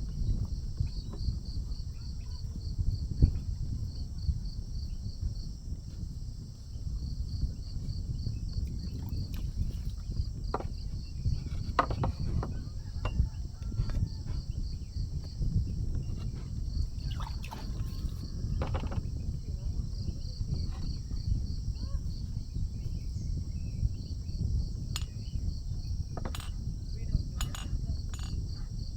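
Outdoor mountain ambience: insects chirp in short trains of rapid high-pitched pulses, repeating every few seconds over a steady low rumble. A few short sharp chirps or clicks come in the middle and near the end.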